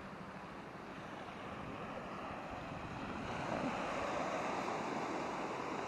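Surf washing onto the beach, a steady rush that swells louder about halfway through as a wave comes in, with some wind on the microphone.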